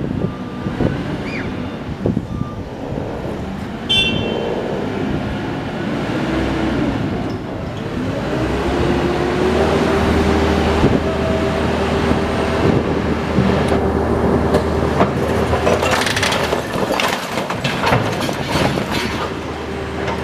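Heavy diesel machinery running on a demolition site, its engine settling into a steady, louder note about eight seconds in. Cracks and knocks of breaking masonry and rubble come through, thickest in the last few seconds.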